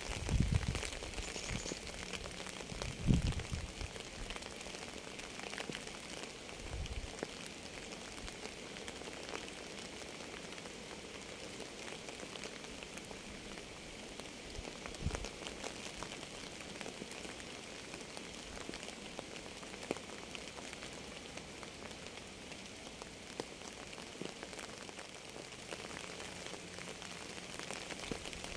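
Steady rain with many individual drops ticking, and a few short, dull low thumps, the loudest about three seconds in.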